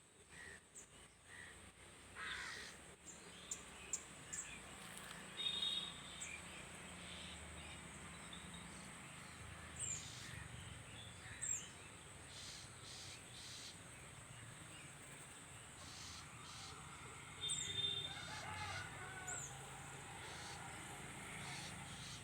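Birds calling outdoors: scattered short, high falling chirps and a few harsher calls, over a steady thin high tone.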